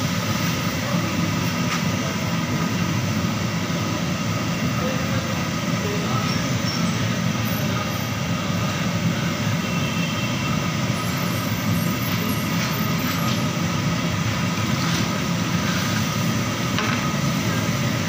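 Steady rushing noise of a gas burner heating a large aluminium degh of chicken curry and water toward the boil.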